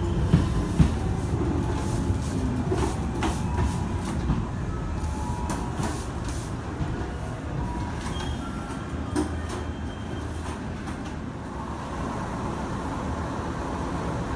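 Electric train running along the station track with a heavy low rumble, its wheels clacking over rail joints a few times in the first second. The rumble then gradually eases into a steadier low hum.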